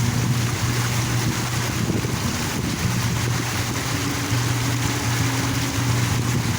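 Park water fountain splashing steadily, with a low hum that drops out and returns every second or two.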